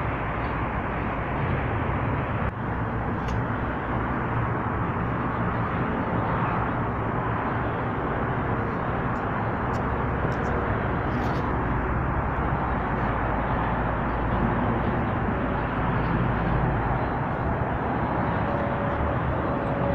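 Steady rumbling outdoor background noise, like passing traffic, with a few faint clicks in the middle.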